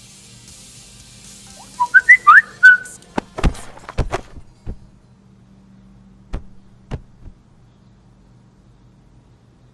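A short whistled phrase of a few quick notes, jumping and sliding up and down, about two seconds in, followed by a string of sharp knocks and clicks, with a few more a couple of seconds later.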